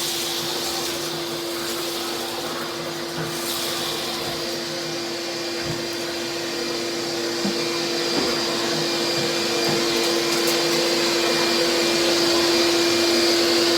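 Shop vac running steadily, with a constant motor whine, while it sucks up shattered shower-door glass; a few faint ticks sound over the drone.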